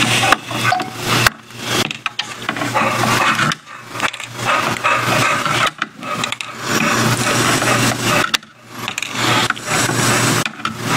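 Rough scraping and rubbing in uneven stretches of a second or two with short pauses: close handling noise as a hand works over the solder side of a TV power supply circuit board.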